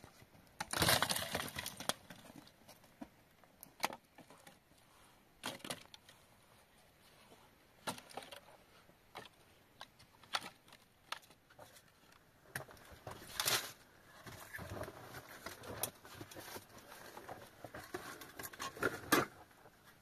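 Dry twigs and brushwood being snapped and handled: a run of crackling about a second in, then scattered sharp cracks and rustles that grow busier near the end.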